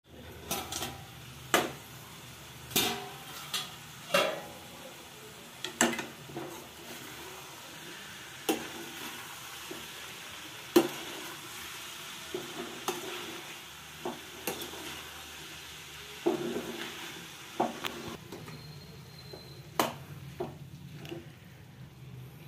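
A steel plate lid clanks as it is lifted off a steel kadai with tongs. Then a steel spoon stirs and scrapes chopped radish sabzi in the pan, with sharp clinks of metal on metal at uneven intervals over a light sizzle.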